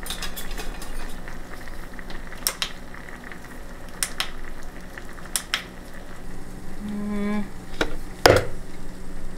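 Sour cream spooned from a tub into a plastic blender jar on a kitchen scale: a handful of sharp clicks and knocks of the spoon against the jar and tub, the loudest near the end. Under it runs the steady sizzle of a pot of blueberries boiling on the stove.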